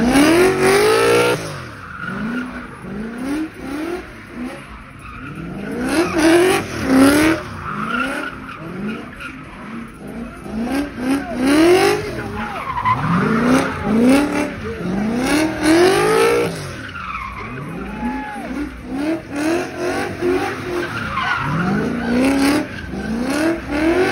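BMW engine revved hard over and over, pitch climbing and dropping many times, with the rear tyres spinning and skidding on the pavement through a smoky burnout.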